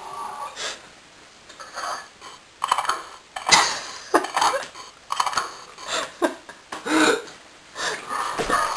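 A person's voice making a string of short, irregular non-speech noises, some squeaky and sliding up or down in pitch, with a few clicks in between.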